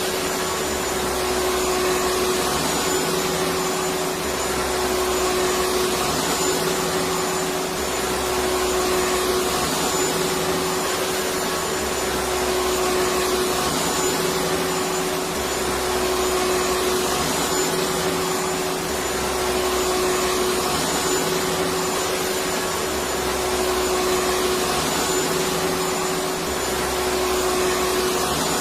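Electric vacuum cleaner running steadily: a constant rushing noise with a steady motor whine, and a low rumble that swells and fades every few seconds.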